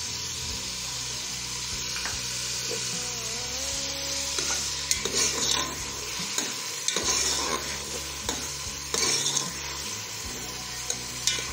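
Onion and tomato masala sizzling as it fries in oil in an aluminium pot, stirred with a steel spoon. The hiss runs steadily, and from about halfway the spoon scrapes and knocks against the pot in irregular strokes.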